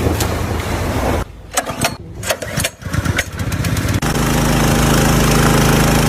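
A small engine running steadily, starting loud about four seconds in, after a few seconds of rough noise and clicks.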